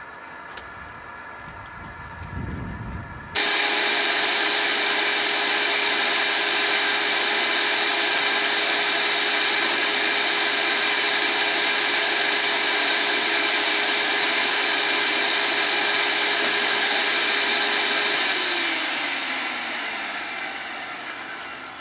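Wet/dry shop vacuum switched on suddenly about three seconds in, its motor running loud and steady with a constant whine. Near the end it is switched off and winds down, the whine falling in pitch as it fades.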